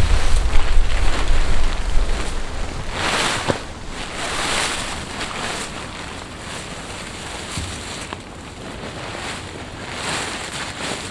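Wind buffeting the microphone, with a heavy rumble for the first three seconds or so, and fabric and foil rustling as a camouflage bedroll and a foil emergency blanket are handled and spread out.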